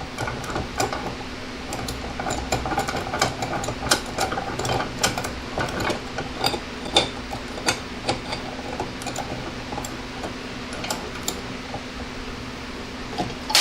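Makita 12V max CXT cordless reciprocating saw cutting through thick stock: a steady motor hum with the blade chattering and clattering irregularly against the material.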